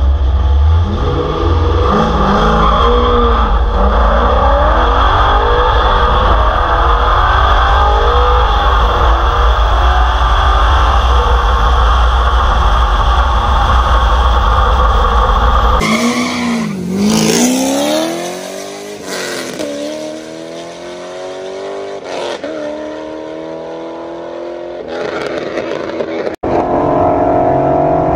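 Straight-piped Corvette C6 Z06 V8 at full throttle through the gears, heard from a camera on the car's side under heavy wind rumble. About 16 seconds in the sound cuts abruptly to race-car engines revving and accelerating past, with several rising engine notes, growing loud again near the end.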